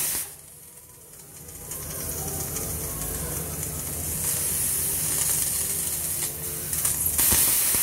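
Hawkins pressure cooker hissing steam from its weight valve as pressure builds while the rice cooks. The hiss starts faintly about two seconds in, grows steadily, and is loudest near the end.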